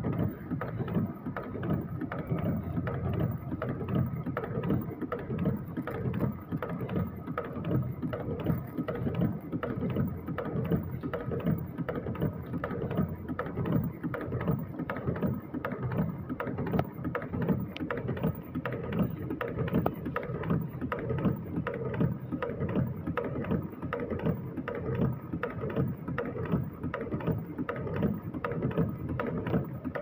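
Water-drop kadi making machine, a mechanical wire-forming machine, running continuously: a fast, steady clatter of repeated forming strokes over a steady hum.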